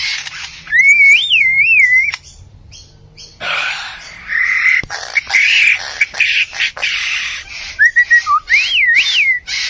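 A bird calling: two phrases of clear warbling whistles that slide up and down, one about a second in and one near the end, with harsher noisy sounds in between.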